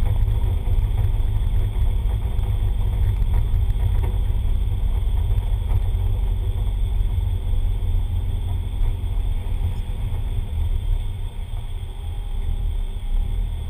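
Turbocharged four-cylinder engine of a Ford Laser TX3 drag car running at low revs, heard from inside the car as a steady, deep rumble; it eases a little near the end.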